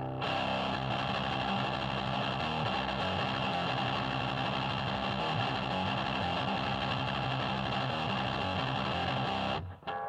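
Electric guitar played through a 1984 Boss HM-2 Heavy Metal distortion pedal, a dense riff with the buzzsaw distortion tone. The riff cuts off abruptly near the end and a single chord starts to ring.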